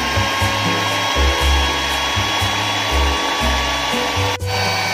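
Electric stand mixer running at high speed, its beaters whipping raw eggs in a bowl: a steady motor whine that shifts abruptly in pitch a little after four seconds in.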